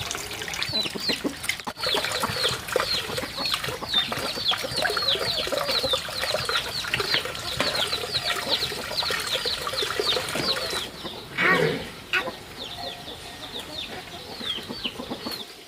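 Chickens: a brood of chicks peeping continuously, many short, high, falling chirps overlapping several times a second, with one louder, lower call about eleven and a half seconds in.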